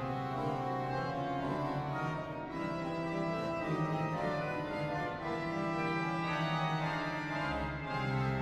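Organ music accompanying a silent film, playing sustained held chords; a deep bass note comes in near the end.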